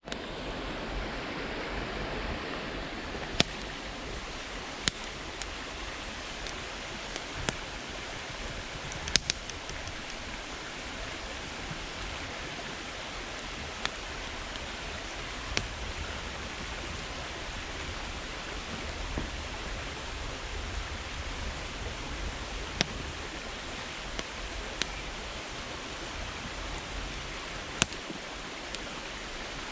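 Wood campfire burning: a steady hiss of flame with sharp crackles and pops from the firewood every few seconds, including a quick run of pops about nine seconds in.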